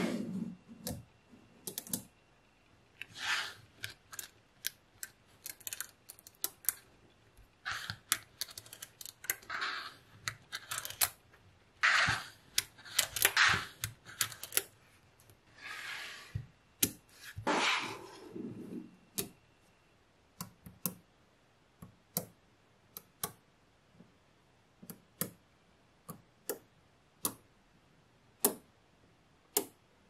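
Small neodymium magnet balls clicking as they snap together under the fingers, in short clattering runs. In the last third only spaced-out single clicks.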